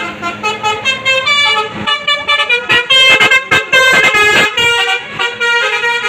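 Bus telolet horn: a bus's multi-tone musical air horn playing a quick tune of short honked notes that jump from pitch to pitch, with a run of rapid short blasts about halfway through.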